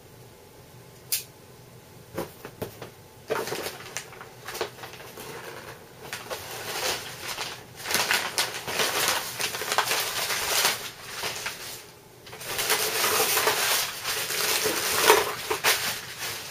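Unpacking a shipping box: a few sharp clicks and knocks, then long spells of rustling and crinkling packing material, with a short pause in between.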